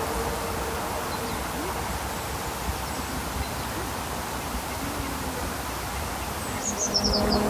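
Steady outdoor background hiss and rumble, with a faint low steady hum that fades out in the first second or so. A few short, high descending chirps come near the end.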